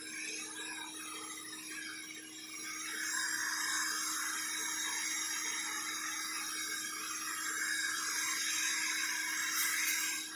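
Sun Joe CJ603E 15-amp electric wood chipper running with a steady motor hum and whine while chewing through branches. The grinding gets louder about three seconds in and cuts off suddenly at the end.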